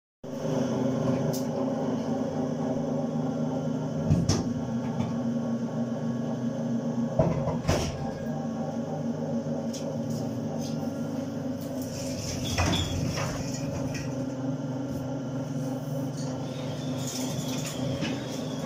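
Hydrox Digger, a tunnelling machine adapted for mining, running steadily with a constant mechanical hum, broken by a few sharp knocks about four, seven and a half and thirteen seconds in.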